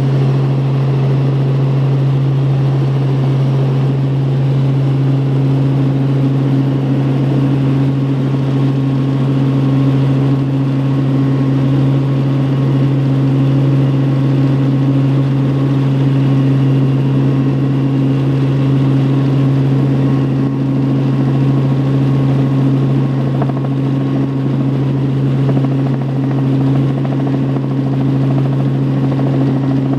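Helicopter in flight heard from inside the cabin: a loud, steady low hum of engine and rotor with wind noise, a second, higher hum coming in a few seconds in.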